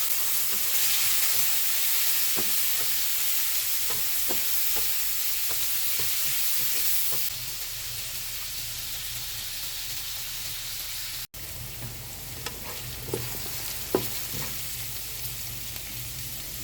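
Food sizzling in a frying pan while being stirred, with a utensil clicking against the pan now and then. The sizzle drops down about halfway through and briefly cuts out.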